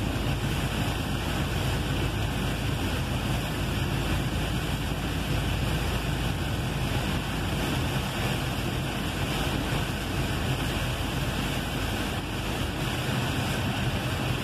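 Heavy rain on a truck's cab and windshield, with the truck's engine droning steadily underneath and its tyres running on the flooded highway: an even, unbroken rush of noise.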